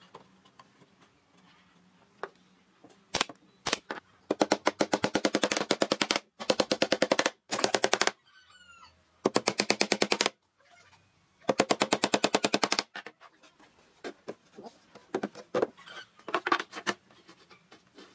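Cordless impact driver driving screws into pine boards: about five bursts of one to two seconds each, a fast, even rattle of impacts, with a couple of single knocks just before.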